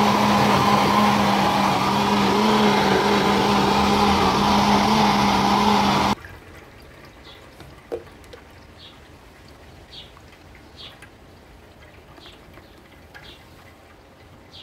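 Philips Walita blender running steadily with a hum, blending chopped oranges, beetroot and carrot in water, then switched off abruptly about six seconds in. After that, juice being poured quietly from the blender jar into a sieve.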